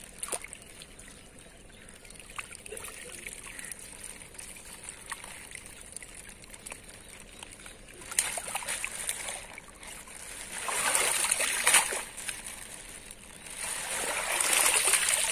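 Water pouring and splashing out of a plastic fish-transport bag into a pond as fingerlings are released. Small splashes and trickles at first, then three louder gushes of water in the second half.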